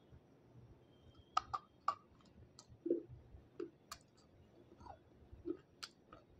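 Biting and chewing a chunk of water-soaked grey stone, softened because it was too hard to crunch dry: a cluster of sharp crunching clicks in the first few seconds, then single crunches near the middle and near the end, with soft chewing sounds between.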